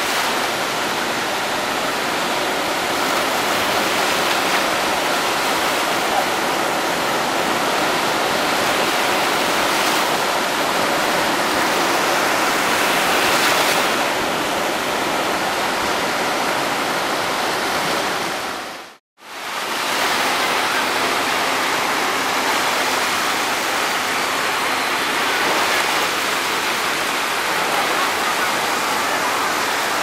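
Small waves breaking and washing up a sandy beach: a steady hiss and wash of surf. It cuts out for a moment about two-thirds of the way through, then resumes.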